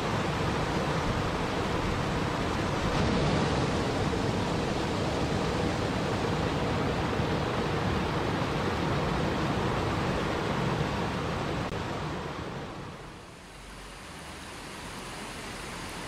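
Water rushing steadily as a small cascade tumbles over rocks into a river. About thirteen seconds in it fades down and gives way to a quieter flow of a shallow stream running over stones.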